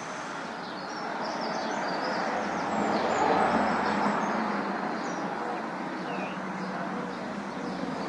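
Steady city traffic noise that swells about three seconds in, with faint, high bird chirps over it.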